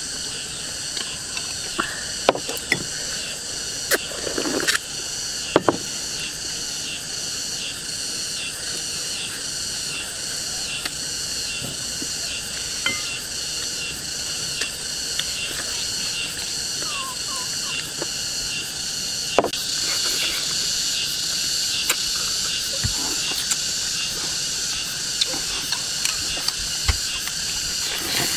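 A steady chorus of insects chirping in fast, even pulses, with occasional small clicks and eating sounds of chopsticks, bowls and chewing.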